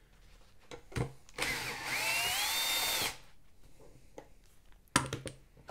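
Cordless drill-driver backing out a bolt from the exhaust's mounting bracket. Its motor runs for under two seconds, with a whine that rises and then holds steady. There is a click before it and a few sharp clicks near the end.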